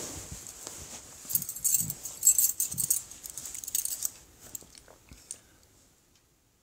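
Rustling and light jingling handling noise close to the phone's microphone, loudest about two seconds in, then fading away and cutting to dead silence near the end.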